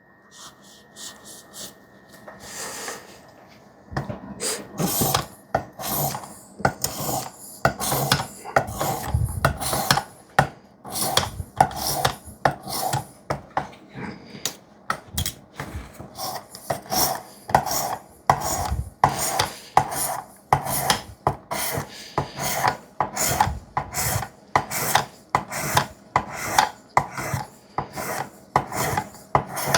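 A CPM 3V steel knife blade being stroked across a wet 600-grit sharpening stone on a Work Sharp guided sharpener, with a rasping swipe about twice a second. The strokes start about four seconds in, after a few faint handling sounds.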